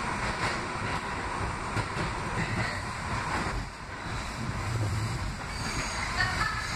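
Interior of a moving R68A subway car: steady rumble and rattle of steel wheels on the rails, with a high wheel squeal starting near the end.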